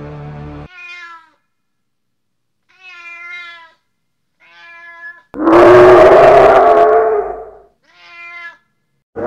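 A cat meowing: four short meows, with one much louder, drawn-out yowl in the middle, about five seconds in. A short stretch of music cuts off just before the first meow.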